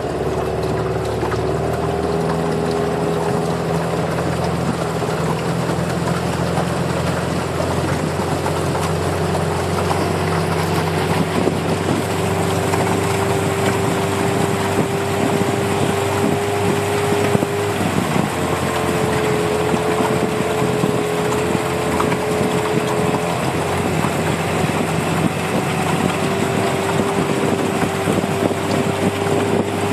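Motor of a small aluminium jon boat running steadily under way, a continuous hum with a steady tone that wavers slightly and drops out briefly about eighteen seconds in.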